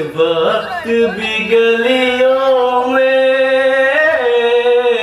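A man's voice singing a naat (Islamic devotional song) into a microphone without words, on a drawn-out vowel: gliding, ornamented turns in the first second or so, then one long held note that bends down near the end.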